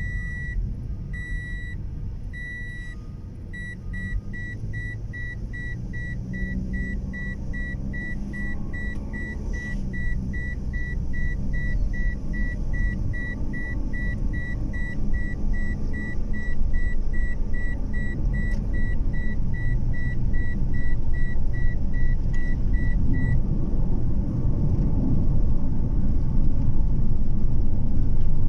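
Car interior with the low rumble of the car driving, growing louder as it gathers speed. An in-car warning chime beeps at a single pitch, slowly at first, then rapidly from about 4 s in, and stops a few seconds before the end.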